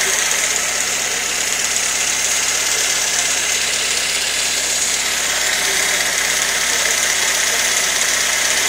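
Carburetted Fiat Tempra engine idling steadily, heard close up under the bonnet.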